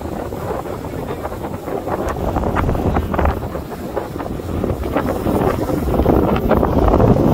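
Wind buffeting the microphone while skiing downhill, with the hiss and scrape of skis sliding over groomed snow, growing louder near the end.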